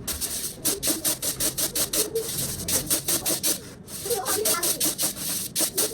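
Quick repeated rasping strokes, about five a second, with a short break near the middle, over faint background voices.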